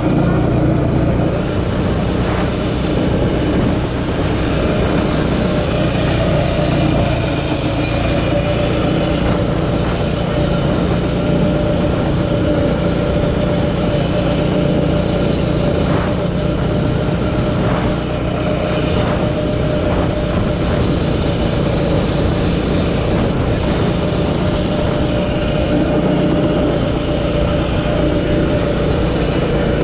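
Arctic Cat 120 youth snowmobile running at a steady, even pace, heard from on board: the small engine's drone over the rumble of the track in snow.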